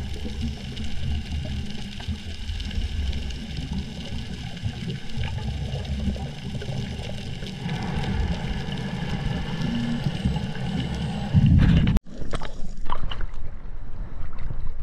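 Muffled underwater noise through a camera housing, with a scuba diver's exhaled regulator bubbles gurgling from about 8 seconds in. About 12 seconds in it breaks off sharply into surface sound: waves slopping against the camera and wind on the microphone.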